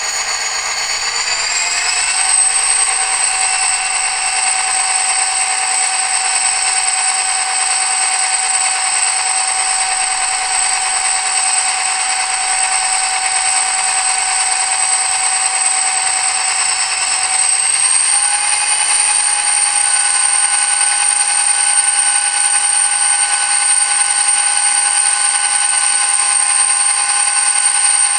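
EMD 16-645E3B turbocharged diesel prime mover sound, played back through a LokSound 5 decoder. It runs steadily with a high-pitched whine, thin and with almost no bass. The whole sound steps up in pitch twice, about two seconds in and again about eighteen seconds in.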